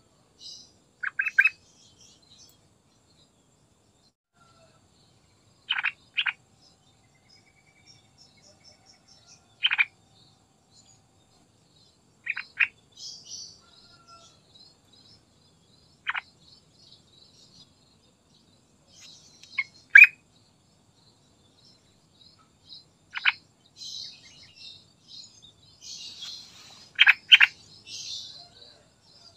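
Yellow-vented bulbul (trucukan) giving short calls every three to four seconds, often in quick pairs. Fainter high chirping runs behind it and is busiest near the end.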